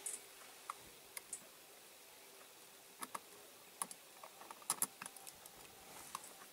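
Faint, irregular small clicks and taps as fingers press a diecast toy lorry's metal baseplate and rivets into place, the loudest of them in a quick cluster about two thirds of the way through.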